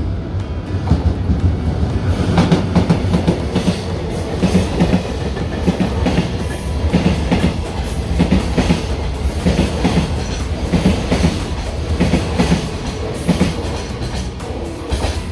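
Freight train passing, wagon wheels clacking over rail joints in a steady rhythm of paired knocks over a continuous low rumble.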